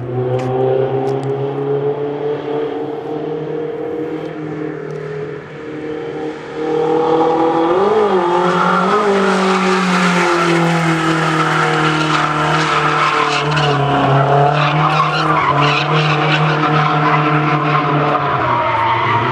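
Drift car engine running steadily, then blipped twice about eight and nine seconds in as the car kicks into a slide; from there the tyres screech loudly through a long drift over the engine held at high revs.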